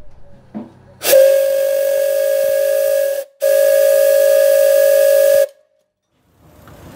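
Steam locomotive whistle blown twice, each blast about two seconds long with a short gap between. It holds one steady note over a hiss of escaping steam and cuts off sharply at the end of each blast.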